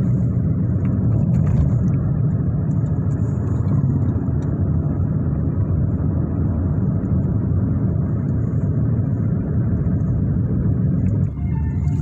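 Steady road and engine rumble heard from inside a moving Hyundai car's cabin.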